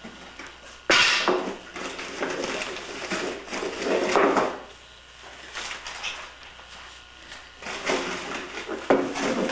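Kitchen handling clatter as pie ingredients are put together: utensils, dishes and containers being knocked and moved about. There is a sharp knock about a second in, bursts of scraping and clatter after it, and another sharp knock near the end.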